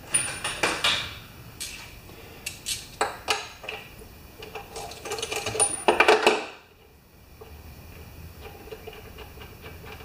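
Socket ratchet and metal hand tools clicking and clinking against a lawn mower engine while the spark plug is loosened. A dense run of quick ratchet clicks comes about five to six and a half seconds in, then only faint ticks.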